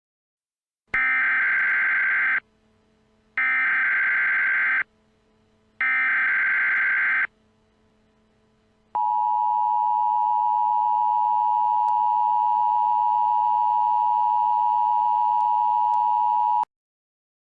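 Emergency Alert System tones. Three harsh, screeching bursts of SAME digital header data, each about a second and a half long and about a second apart, come first. A pause follows, then the steady two-tone EAS attention signal holds for about seven and a half seconds and cuts off abruptly.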